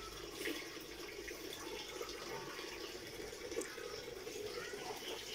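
Steady sound of running or trickling water.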